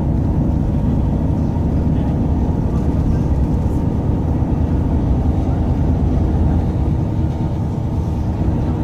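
Steady low rumble of a bus travelling at speed, heard from inside the passenger cabin: engine and road noise.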